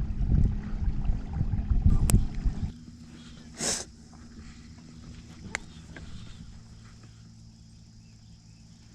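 Low rumbling noise on the boat that drops off suddenly about three seconds in, leaving a faint steady low hum. A few sharp clicks and one short hiss sound over the hum.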